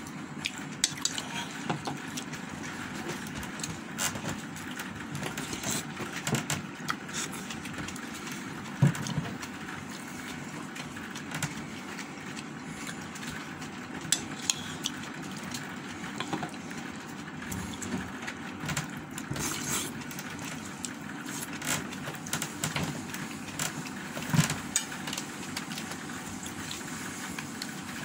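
Eating sounds: chewing and mouth noises as rice and roast chicken are eaten by hand, heard as scattered short clicks and smacks over a steady background hiss.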